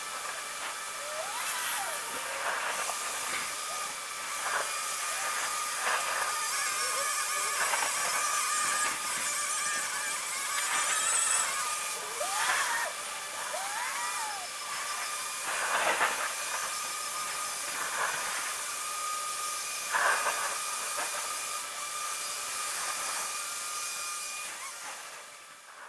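Thunder from a storm played back sped up about fifteen times, so it comes through as repeated short crackling bursts over a steady hiss. The loudest crackles come about two-thirds of the way through. Faint steady tones and brief gliding chirps run underneath.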